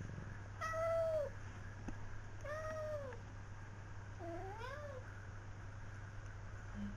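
Domestic cat meowing three times in drawn-out calls, the last one sliding up then down, the cat annoyed as it squares up to two terriers. A steady low hum runs underneath.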